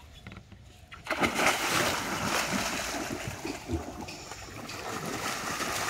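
Heavy, continuous water splashing against the side of a wooden boat, starting suddenly about a second in, as a cast net is hauled up with a large fish thrashing in it at the surface.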